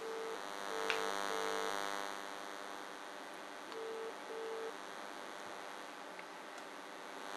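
British telephone ringback tone from a mobile phone on loudspeaker while the dialled shop's line rings: double rings (ring-ring, pause, ring-ring) about two seconds apart, stopping after the second pair. A steady electrical hum runs under it.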